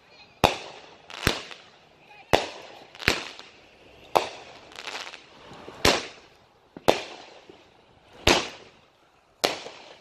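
Consumer fireworks cake firing a string of about ten loud shots, roughly one a second, each bang dying away over a fraction of a second.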